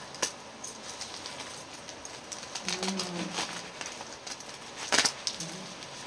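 Plastic courier mailer being torn open by hand, crinkling and rustling with sharp crackles, the loudest about five seconds in.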